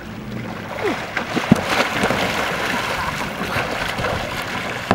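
Lake water splashing and churning as a person hauls himself out of the water onto a kayak, picking up about a second in.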